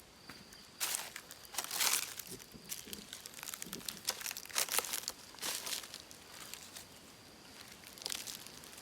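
Irregular bursts of rustling and crinkling, the loudest about a second in, around two seconds, and between four and a half and five and a half seconds, with a faint steady high tone during the first second.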